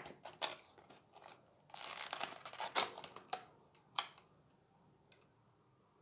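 Clear plastic blister pack crinkling and clicking as it is handled and flexed, with a denser stretch of crackling about two seconds in and a single sharp click about four seconds in.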